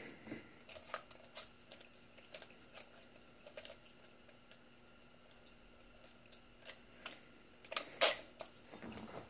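Small, irregular clicks and taps of a dash gauge's plastic housing and wiring connectors being handled and taken apart, with a louder cluster of clicks about eight seconds in.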